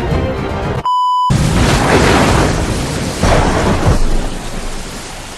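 A short electronic beep about a second in, then heavy rain with thunder rumbling twice, fading toward the end.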